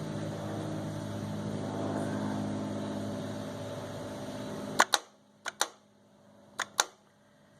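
1985 Harley-Davidson Sportster's electric starter humming steadily without cranking the engine, starved of voltage from a weak battery on jumper cables. It cuts off with a sharp click a little over halfway, followed by two pairs of short clicks.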